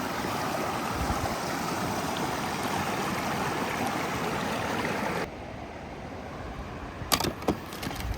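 Steady rushing noise that cuts off abruptly about five seconds in, giving way to a quieter background with a few sharp clicks.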